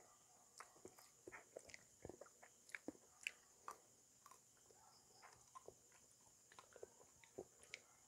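Faint eating sounds: a metal spoon scraping and clinking against a plate as rice and sautéed eggplant are scooped, with soft biting and chewing, heard as a scattered run of small clicks and taps, busiest around the third second.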